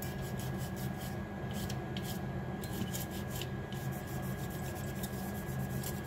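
Alcohol-soaked cotton wad rubbed back and forth over a remote control's circuit board, a soft, repeated scratchy scrubbing as the button contacts are cleaned.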